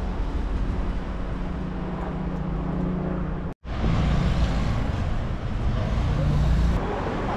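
City street traffic noise: a steady rumble of road vehicles, with a split-second dropout about halfway through.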